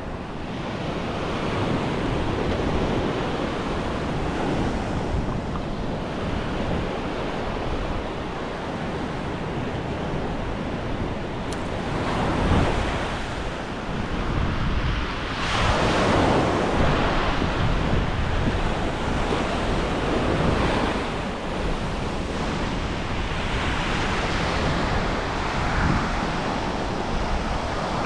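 Ocean surf washing up a sandy beach in repeated swells, the loudest about halfway through, with wind buffeting the microphone.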